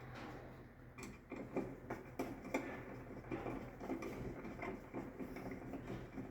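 Irregular light clicks and taps of a screwdriver and cable ends being worked into the terminals of a distribution board while neutral conductors are terminated.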